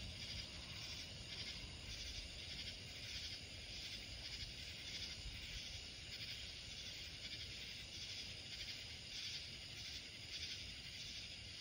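Night insects chirping in a steady, pulsing chorus, over a faint low rumble.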